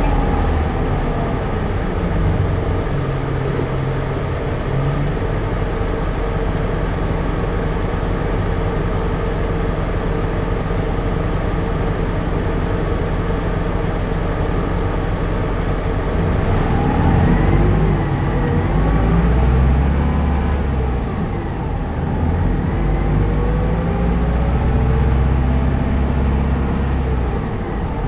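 Keio Bus city bus under way, heard from inside the cabin: the diesel engine runs steadily under road rumble. From about two-thirds of the way through, the engine note rises and falls as the bus pulls away and picks up speed.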